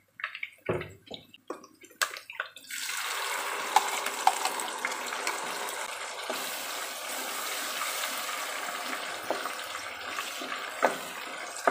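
Blended chili paste frying in hot oil in a pan: after a few knocks, a steady loud sizzle starts suddenly about three seconds in and continues while the paste is stirred with a wooden spatula, with the odd tap.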